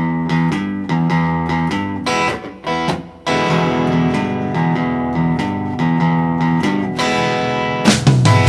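Instrumental guitar passage of a song, with rhythmic plucked and strummed chords over a bass line. It dips briefly about three seconds in, then resumes.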